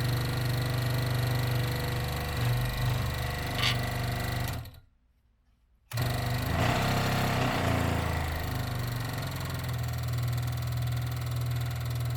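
Ryobi 16-inch variable speed scroll saw running, its motor and blade driving steadily. It stops about four and a half seconds in and starts again a second later. It is a test run after the speed-control triac was replaced, and the saw is working again.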